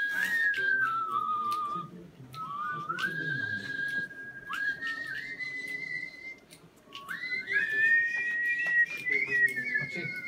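A man whistling a melody in three phrases, with long held notes joined by short slides and brief breaks between phrases; the last phrase sits a little higher.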